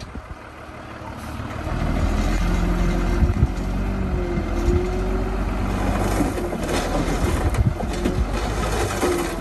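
Diesel engine of heavy earthmoving machinery running, growing louder over the first two seconds. A wavering whine joins partway through, and there are a few sharp knocks.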